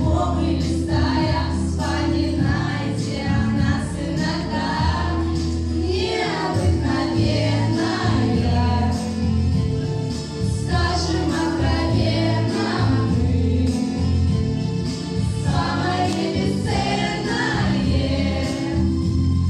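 A group of young singers sings together into handheld microphones over amplified accompaniment music with a steady bass line.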